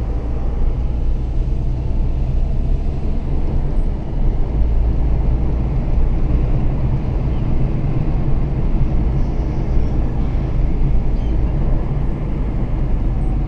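Steady low rumble of engine and tyre noise heard from inside the cabin of a 2015 Renault Sandero 1.6 driving along at steady speed.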